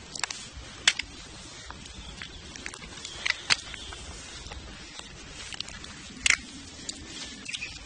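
Yellow plastic rain poncho rustling and crinkling against the phone while walking, with irregular sharp crackles, the loudest about a second in, around three and a half seconds in and past six seconds.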